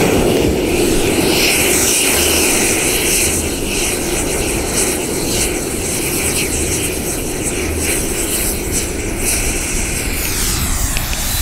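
A lump of cast rocket propellant, oxidizer and fuel melted together, burning on the ground with a loud, steady rushing hiss that slowly eases toward the end. This is an open-air test burn to check how the propellant performs.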